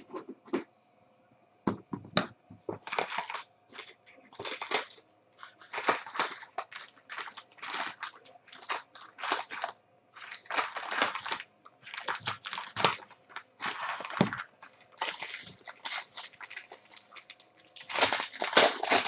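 Foil trading-card pack wrappers crinkling and tearing as packs are handled and ripped open by hand, in many irregular rustling bursts.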